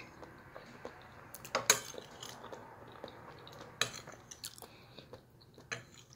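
Metal spoon clinking and scraping against a plate while scooping up stew: a few sharp clinks, the loudest pair close together about a second and a half in.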